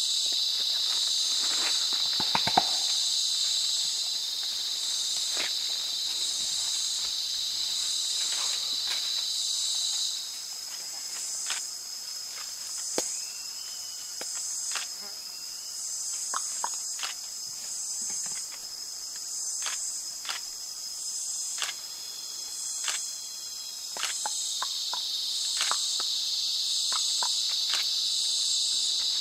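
Rainforest insect chorus: a steady high-pitched buzz that stops about ten seconds in and comes back near the end, over another insect's higher trill pulsing about once a second. Scattered sharp clicks and rustles in the leaf litter sound throughout.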